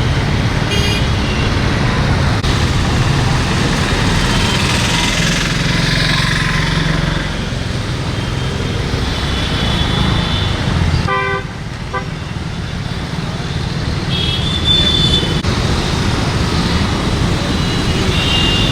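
Steady road traffic with vehicle horns honking several times, one clearer horn blast about eleven seconds in.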